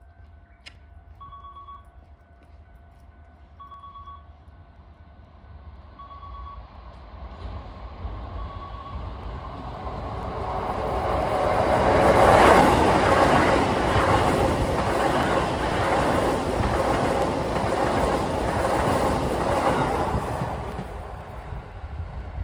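Keisei 3000-series electric train passing through the station at speed without stopping. The noise builds over several seconds, is loudest as the front of the train passes, and keeps up a dense clatter of wheels over the rails before falling away near the end. Over the first several seconds a short two-pitched tone repeats about every two and a half seconds and then stops.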